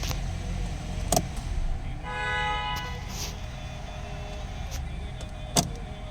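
Inside the cab of a RAM 1500 Classic, a steady low engine idle with two sharp clicks and a short electronic chime about two seconds in.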